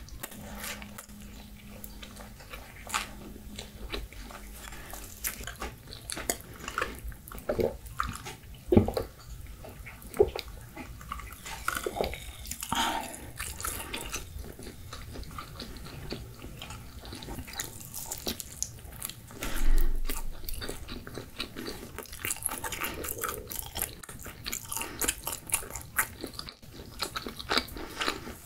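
A person chewing pizza up close, with many small wet mouth clicks and smacks and a few louder bites.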